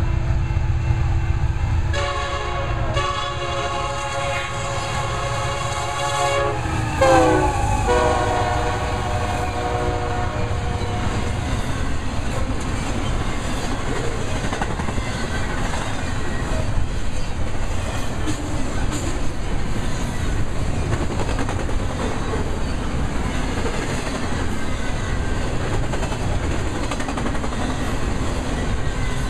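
Union Pacific SD70M locomotive horn blowing for a grade crossing, with two short breaks, over the rumble of the diesel engines. About seven seconds in the horn's pitch drops as the lead unit passes, and it trails off within a few seconds. After that the steady rush and clatter of a long double-stack container train rolling by at speed takes over.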